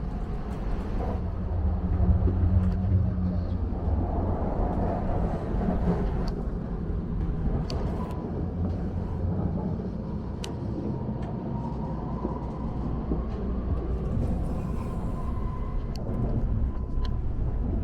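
Shinkansen bullet train carriage interior: a steady low rumble from the train, with a faint steady whine in the second half and a few light clicks.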